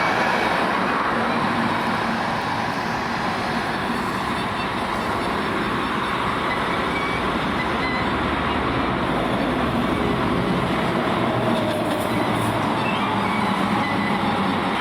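Steady, dense vehicle noise that does not let up, with a few faint steady tones in it.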